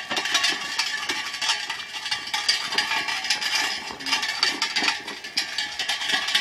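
Ox-drawn cart rolling along, with a continuous dense rattling and clattering of the cart as it is pulled.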